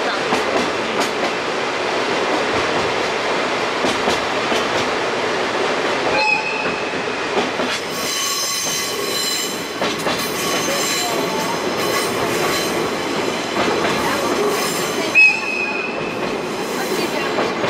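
Sagano Scenic Railway sightseeing train running along the track, heard from on board: a steady rumble with clicks from the wheels on the rails. Brief high wheel squeals come about six seconds in and again near the end.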